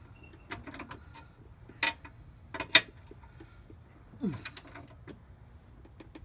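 Hand ratchet and socket clicking and clinking in a few short, separate bursts on a tightened motor-mount bolt, with a brief falling squeak about four seconds in.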